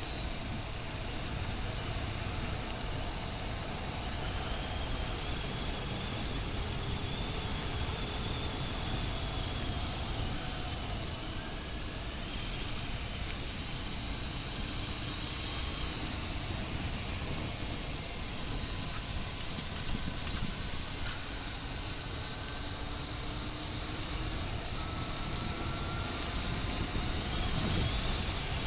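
Motorcycle on the move: steady wind rush over the microphone with the engine's note faintly rising and falling beneath it.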